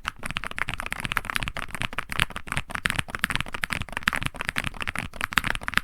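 Fast typing on a mechanical keyboard with Gateron Magnetic Jade Attraction Hall-effect switches and PBT keycaps: a dense, rapid clatter of keystrokes, with a brief pause just after the start.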